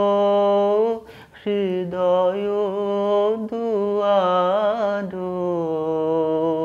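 A man singing a Rabindrasangeet without accompaniment, drawing out long held notes. He takes a short breath about a second in, then sings an ornamented, wavering phrase before settling back onto sustained notes.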